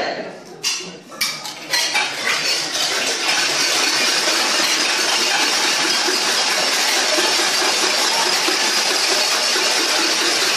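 A crowd of protesters making a loud, steady clatter of noise. It builds up from a few separate claps or knocks in the first two seconds.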